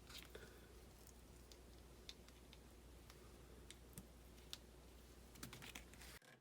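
Faint, irregular light clicks and taps of small plastic RC car kit parts and tools being handled during assembly, over a low steady hum. The sound cuts off suddenly near the end.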